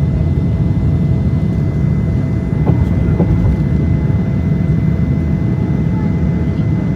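Airplane engines during takeoff climb: a loud, steady low roar with a faint steady whine above it.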